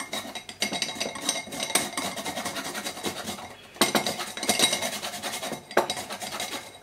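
Lime being zested on a flat metal rasp grater over a glass bowl: quick, repeated scraping strokes of the rind across the grater's teeth, with a short lull about halfway and a sharp tap near the end.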